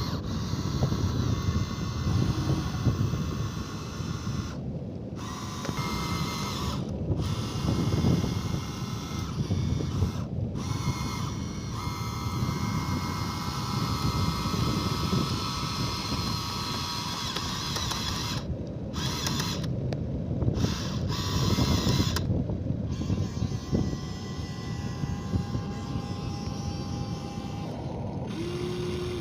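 Small electric motors and gearboxes of a handmade RC excavator and trailer truck running, a steady mechanical whir with thin whining tones. The sound changes abruptly several times.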